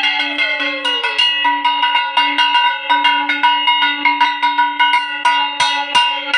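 A metal puja bell struck rapidly and unevenly, several strikes a second, its ringing carrying on between strikes. A tone slides down in the first second, and near the end the striking stops and the ringing fades.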